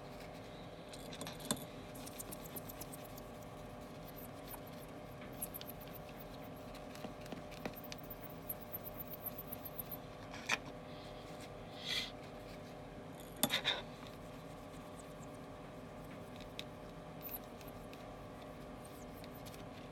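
A lint-free cloth rubbing and wiping over the glass of an iPhone LCD panel, with scattered light clicks, ticks and a few short scrapes from handling the panel and cloth, over a steady low hum.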